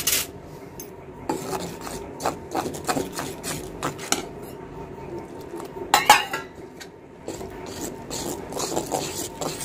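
A utensil stirring and scraping gram-flour (besan) and water into batter in a bowl, with irregular rasping strokes and a few sharper knocks against the bowl, the loudest about six seconds in.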